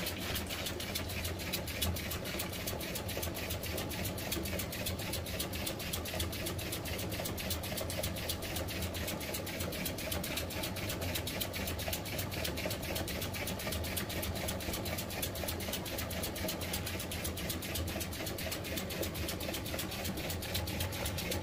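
Homemade two-cylinder steam engine running at a steady speed, its pistons and valves beating out a fast, even rhythm of chuffs and knocks.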